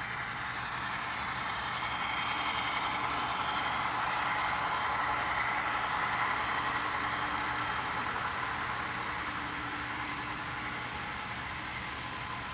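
Model diesel locomotives and freight cars running on the layout's track: a steady mechanical rumble that swells as the train passes close about halfway through, then eases off.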